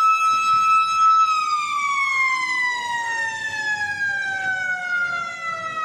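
A siren sounding one steady pitch, then about a second in starting to slide slowly lower as it winds down.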